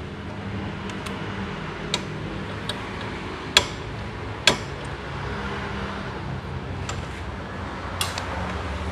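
Metal hand tools clicking and tapping against parts in a car's engine bay: about six sharp clicks, the two loudest about three and a half and four and a half seconds in, over a steady low hum.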